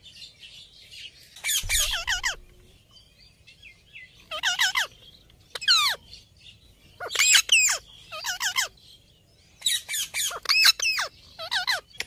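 Rose-ringed parakeets calling: short, harsh calls with a rapidly wavering pitch, repeated in bursts every second or two.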